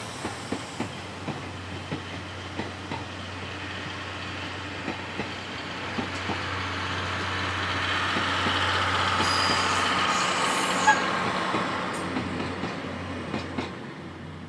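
Passenger coaches rolling past with their wheels clicking regularly over rail joints, then a DE10 diesel-hydraulic locomotive at the rear of the train passing close. Its engine and wheel noise swells about eight to eleven seconds in, then fades as it moves away.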